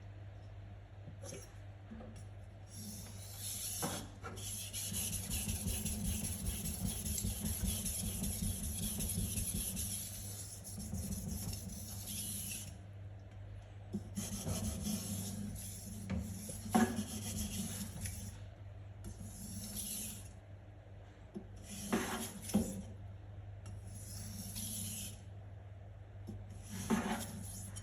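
A Sugimoto kitchen knife blade stroked back and forth across a whetstone, making a gritty rasping in runs of strokes with pauses between them. A few sharp taps come in between.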